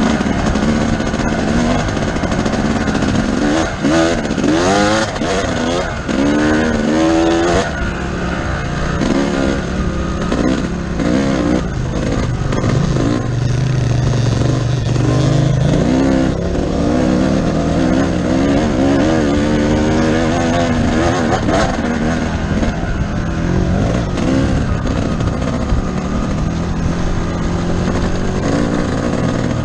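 KTM 990's V-twin engine under way on a dirt trail, its pitch rising and falling several times as the throttle is opened and closed.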